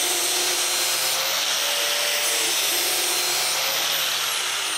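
Angle grinder running under load, grinding the cutting edge of a steel lawn mower blade clamped in a sharpening jig: a steady hiss with a whine that wavers in pitch. Near the end it is switched off and its whine starts falling as it spins down.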